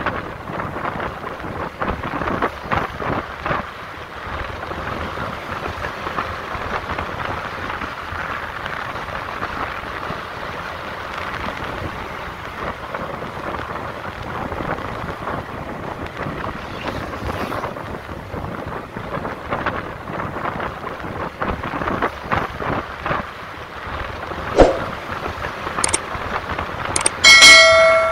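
Wind buffeting the microphone of a camera in a moving vehicle, over steady road noise. Near the end come a few sharp clicks and a loud bell-like chime: a subscribe-button sound effect.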